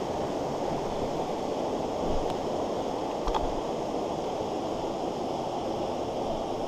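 Fast mountain stream rushing over rocks, a steady wash of water, with two faint knocks about two and three seconds in.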